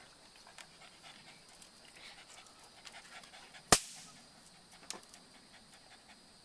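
One sharp pop of a snap-pop firecracker going off in a hand about two-thirds of the way through, with a smaller click a second later. A dog pants softly in the background.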